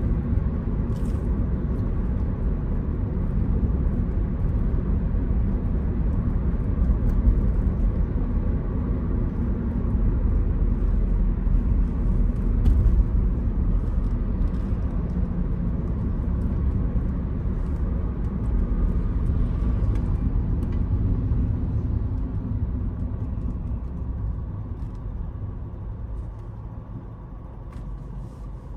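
Car road and engine noise heard from inside the cabin while driving, a steady low rumble that dies down over the last few seconds as the car slows to a stop.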